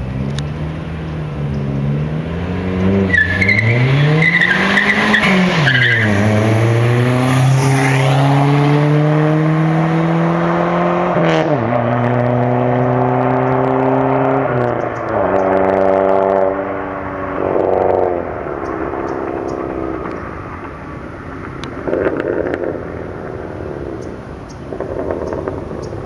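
Dodge Neon SRT-4's turbocharged four-cylinder, fitted with a Borla exhaust, launching hard with a brief tyre squeal. It then accelerates through the gears: the engine note climbs steadily and drops sharply at each upshift, about three times, before fading away into the distance.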